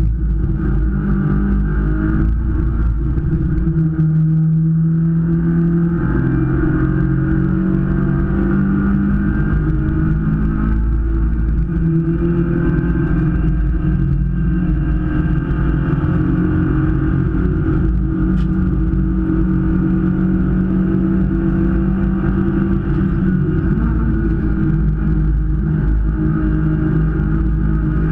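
Race car engine heard from inside the cockpit while racing, running hard throughout, its pitch stepping up and down as the car accelerates, shifts and slows for corners.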